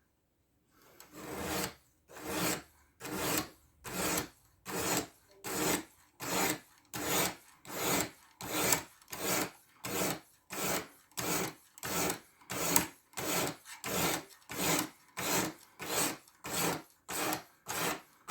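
Steel knife blade being drawn over the diamond stone of a guided fixed-angle sharpener, a rasping stroke repeated at an even pace of a little over one a second, each stroke swelling then stopping short. The stone is a grit below 400, used for setting the bevel.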